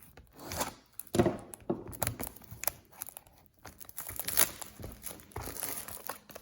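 Plastic wrapping on a trading-card hobby box being torn and crinkled by hand, in irregular crackling rustles.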